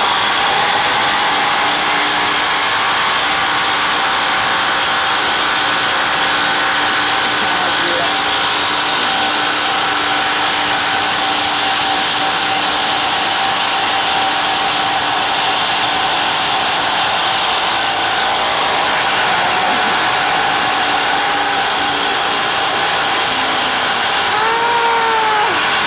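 Two cordless impact drivers, a Craftsman and a Stanley FatMax, running flat out together as they bore 15 mm holes into a thick wooden beam; a loud, steady, dense machine noise that starts suddenly and holds at an even level.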